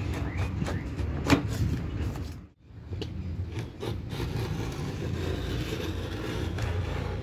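Snap-off utility knife scoring a board along a straightedge, a steady scraping with a sharp click about a second in, over a steady low hum.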